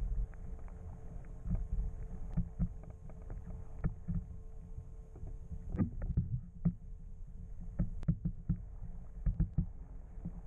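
Muffled sound through a submerged camera's waterproof housing: a steady low underwater rumble with a faint steady hum, broken by scattered sharp knocks and clicks that come thicker in the second half.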